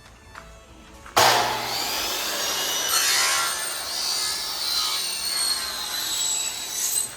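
A power tool cutting: it starts abruptly about a second in, runs for about six seconds with a shrill wavering whine over a rasping hiss, and stops near the end.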